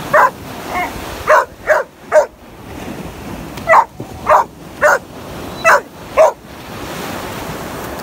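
Yellow Labrador retriever puppy barking in short, sharp barks, about nine in bunches of two or three, over the steady rush of surf. The barking stops near the end, leaving only the waves.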